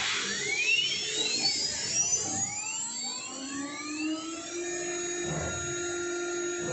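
Spindle of an automatic tool change CNC machine spinning up: a whine that rises in pitch over the first three seconds or so, then settles into a steady high whine at full speed.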